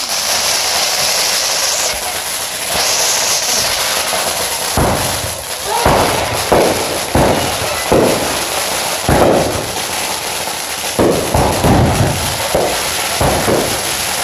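Fireworks going off. A high hiss in the first few seconds, then a string of sudden pops and bangs about every half second to a second.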